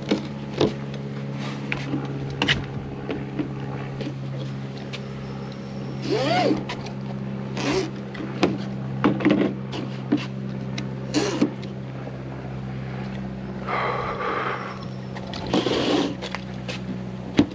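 Utility knife trimming excess window-screen mesh along an aluminium screen frame: scattered short scrapes and clicks of blade and mesh against the frame. A steady low hum runs underneath.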